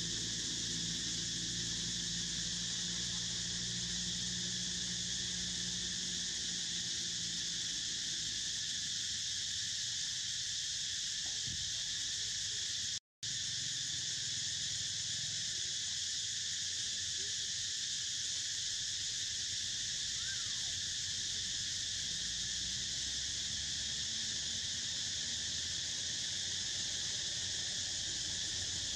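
Steady, dense high-pitched chorus of insects buzzing in the trees, with a low hum underneath for the first several seconds. The sound cuts out for a split second about 13 seconds in.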